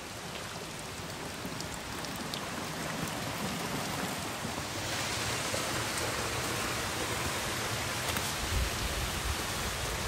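Steady rush of a mountain stream running over rocks in a small cascade. It grows louder about halfway through.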